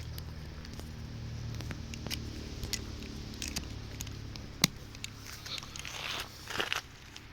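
Handling noise from tarp guy lines and gear: scattered clicks and rustling with footsteps, a sharp click about two-thirds of the way through, and a burst of rustling near the end.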